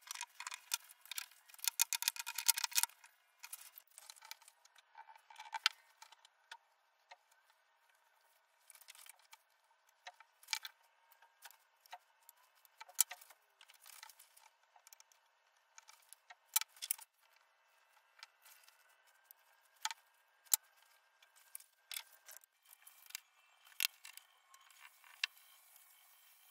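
Bar clamps, a steel square and pine strips being handled on a workbench: scattered clicks, taps and light knocks, with a quick flurry of rattling clicks in the first few seconds.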